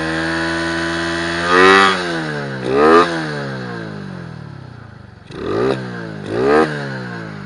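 Single-cylinder engine of a 122cc Honda C70 Cub fitted with a racing camshaft and retuned carburettor, revved four times, the pitch climbing quickly and sliding back down each time.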